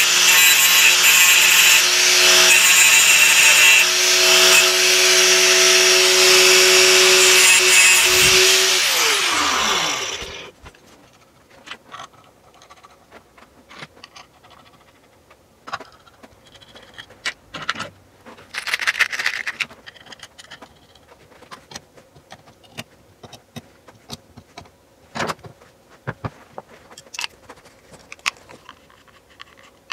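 Angle grinder cutting off excess metal on an aluminium two-stroke engine case for about ten seconds, then switched off and spinning down. After that, scattered light clicks and clinks of metal parts handled on a workbench, with one short rushing noise about halfway.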